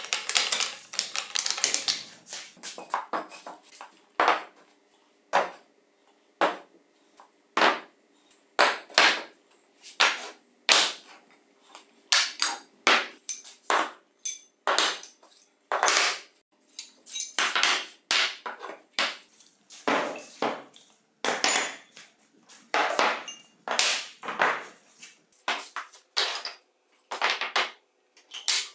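Rusty cast-iron castings and steel rods and pipes of a disassembled chisel mortiser being set down one after another on a wooden workbench: irregular clunks and clinks, some with a short metallic ring, about one or two a second. The first couple of seconds hold a denser metal-on-metal clatter.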